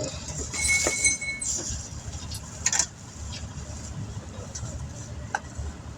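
Compressed air hissing briefly from an air hose fitting with a thin whistle, about a second long, followed by a few scattered metallic clinks of the hose and tools, over a steady low vehicle-like rumble.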